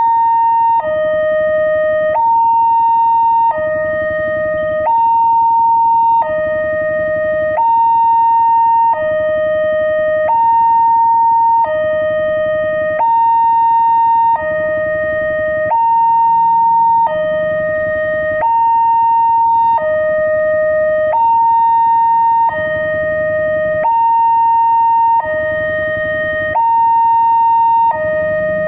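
Railway level-crossing warning siren sounding a steady two-tone hi-lo alarm: a higher and a lower tone alternate evenly, each held for just over a second. It warns that a train is approaching and the crossing is closing.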